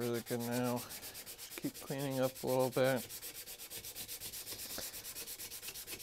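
Hand sanding of a steel axe head with 220-grit sandpaper: quick, even rasping strokes, several a second. In the first three seconds a few short pitched squeaks sound over the rasping.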